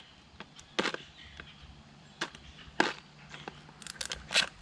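Handling a plastic-bagged TIG torch accessory kit: the plastic crinkles and the torch cups and parts inside click against each other in a few sharp, irregular ticks.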